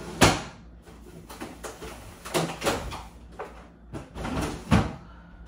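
A few sharp knocks and clunks of things being handled in a kitchen, the loudest just after the start and more near the middle and near the end, like a cupboard or fridge door and items being set down.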